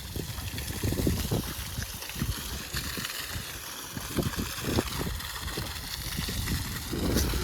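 Water splashing and trickling, with uneven low thumps.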